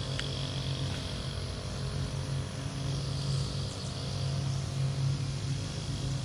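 Steady low drone of a running motor with a faint high hiss over it.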